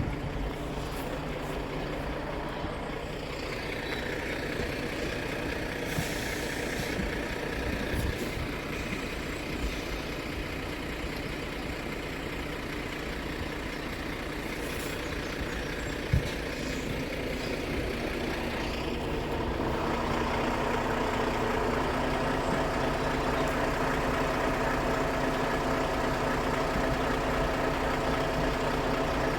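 Heavy vehicle engine idling steadily, growing louder about twenty seconds in, with a sharp click about sixteen seconds in.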